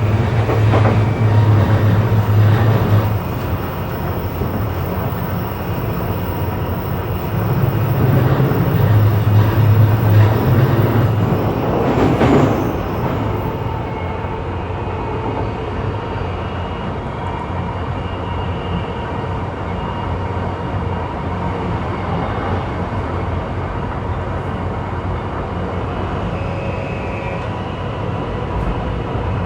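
JR East E235-1000 series electric train running, heard from inside the carriage: steady wheel and track noise with a low motor hum. The hum swells during the first few seconds and again for several seconds in the middle, with a brief louder sound about twelve seconds in, then the running goes on evenly.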